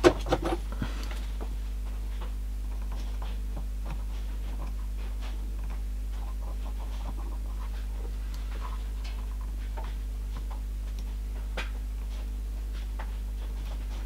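Steady low electrical hum, with a few sharp clicks and taps in the first second as small plastic and metal USB plug parts are handled, then only faint scattered ticks.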